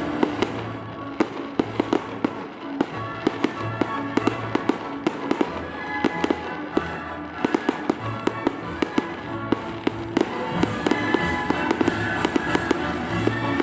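Fireworks display: rapid bangs and crackling of shells bursting, many reports a second, over loud accompanying music with held orchestral notes.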